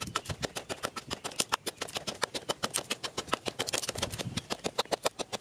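Wooden pestle pounding chopped green herbs and chilies in a wooden mortar: fast, even dull knocks, about six to seven strokes a second.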